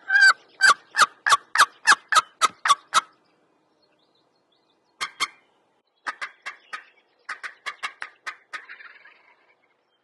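Loud turkey yelping: a run of about ten evenly spaced yelps, a pause, then two more, followed by quicker, choppier strings of notes near the end.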